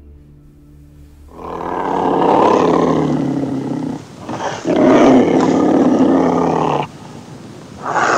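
An animal's loud, drawn-out calls: two calls of about two to three seconds each with a short break between them, and a third starting near the end.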